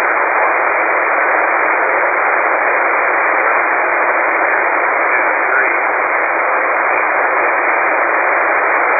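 Steady hiss and static from a shortwave receiver tuned to an HF aeronautical channel, heard in the narrow, tinny band of a sideband receiver. It is the empty channel between transmissions, with no voice or SELCAL tones on it.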